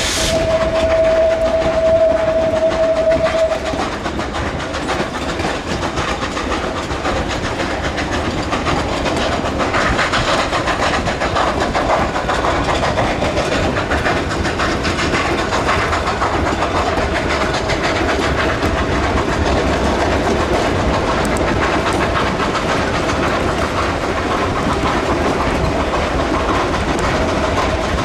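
Steam whistle of 2-8-2 narrow-gauge locomotive No. 481 sounding one long steady note for about three and a half seconds at the start. After that the freight train runs on, cars rumbling and wheels clicking over the rail joints, heard from an open car behind the engine.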